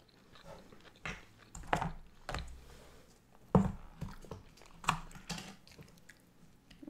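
Scattered clicks and taps of wooden chopsticks and small plastic sauce cups being handled over a wooden sushi tray, close to the microphone: about seven separate taps, the loudest about halfway through.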